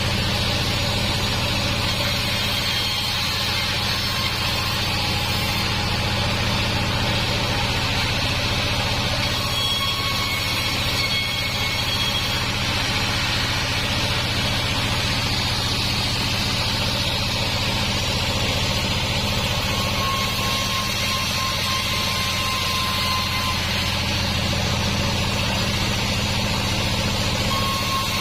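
Band sawmill machinery running with a steady low hum that does not rise or fall.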